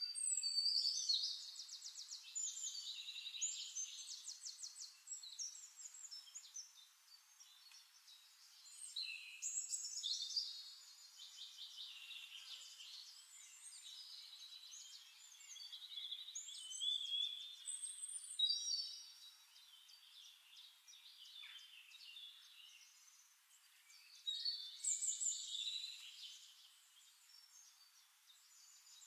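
Songbirds singing: high, rapid trills and chirps in four bursts of song, the loudest right at the start.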